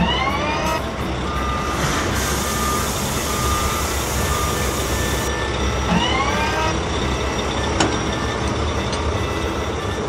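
Wheel loader sound effects: a steady diesel engine rumble with short repeated reversing beeps, and a rising hydraulic-style whine near the start and again about six seconds in. Between them a rushing hiss as the loader's bucket of dirt pours into the dump truck's bed.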